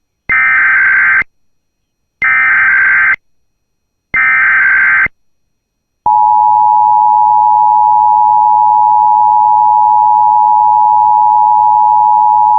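Emergency Alert System Required Monthly Test: three one-second bursts of SAME header data tones, about a second apart, then about six seconds in the steady two-tone attention signal (853 and 960 Hz) starts and holds.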